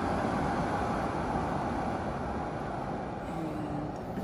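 Carico Nutri-Tech air purifier's fan running at a high speed setting, a steady rush of air that eases off slightly near the end.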